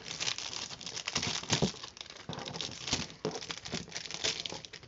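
Plastic wrapper of a 1988 Topps baseball card rack pack crinkling and crackling in irregular bursts as it is handled and torn open.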